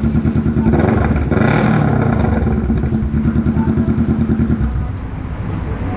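Kawasaki Ninja 650's parallel-twin engine idling through an aftermarket full exhaust, blipped once about a second in, the revs rising and falling back to a steady idle.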